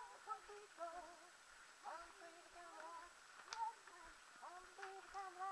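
Voices singing a tune faintly, in held notes that step up and down, with a sharp click about three and a half seconds in.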